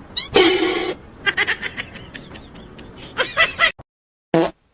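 A cat meowing: one loud, drawn-out meow, followed by a run of shorter, quick calls. The sound cuts off abruptly, and a brief call follows near the end.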